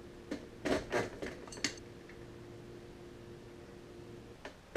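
Light metallic clinks of hand tools and small parts being handled on an aluminium transmission case, a few in the first second and a half and two more near the end, over a faint steady hum that stops near the end.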